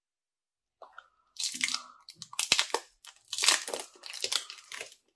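Clear plastic protective wrap being peeled off the back of a new smartphone, crackling and crinkling in a run of irregular bursts that starts about a second in.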